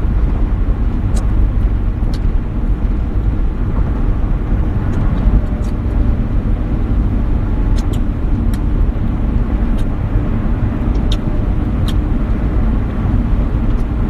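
Steady loud low rumbling noise, with a few faint sharp clicks scattered through it.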